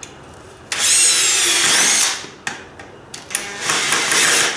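Makita cordless drill-driver driving a screw into a wooden brace block. It runs in two bursts: a whine of about a second that drops in pitch as the screw bites, a few short blips, then a second run near the end.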